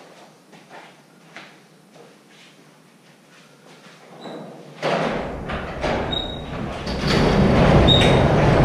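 Garage door being raised: a loud rumbling rattle with a few short metallic squeaks starts about five seconds in and grows louder near seven seconds. Before it, a few light knocks.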